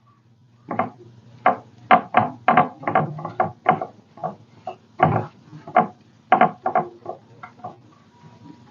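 A string of irregular knocks and taps, wooden craft pieces being handled and set down on a work table.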